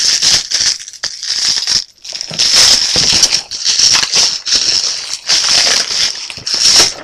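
Plastic wrapping being crinkled and rustled as it is pulled off by hand, with short breaks about one and two seconds in.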